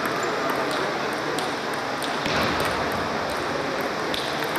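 Table tennis balls being hit and bouncing: many short, irregular clicks from rallies at several tables, over a steady background din that echoes in the large hall.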